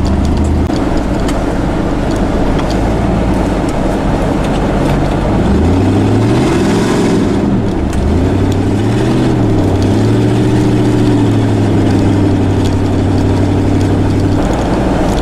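Vehicle engine heard while driving: about five seconds in it revs up and drops back twice, as when accelerating through the gears, then runs at a steady pitch, over continuous road noise.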